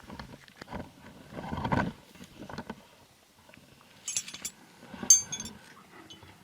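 Metal tent pegs being handled, with rustling and knocking at first, then two short bursts of bright ringing clinks as the pegs strike each other, about four and five seconds in.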